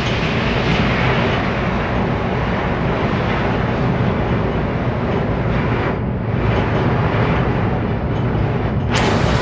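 Steady rush of wind and sea on the open deck of a container ship under way, with a low, even rumble underneath and wind buffeting the phone's microphone.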